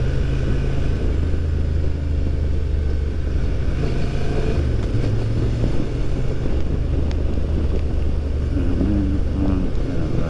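Honda Transalp motorcycle engine running steadily while riding. Its note dips briefly about halfway through, then settles again.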